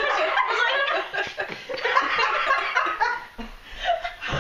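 Women laughing hard together, with a short lull about three and a half seconds in before the laughter picks up again.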